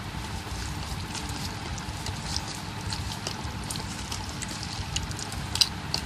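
A hand squishing and turning raw prawns in a thick, wet batter marinade in a metal bowl, making wet squelching and sloshing, with a few sharp clicks near the end.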